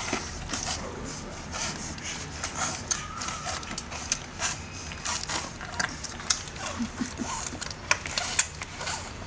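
French bulldog puppies nursing from their mother: irregular wet sucking and smacking clicks.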